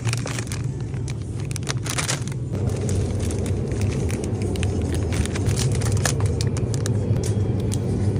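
A steady low hum with many short, sharp crackles and clicks over it.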